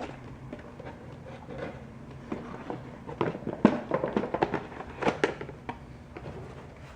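Unboxed items and packaging being handled: a run of clicks and knocks, busiest from about halfway through, over a steady low hum of air conditioning.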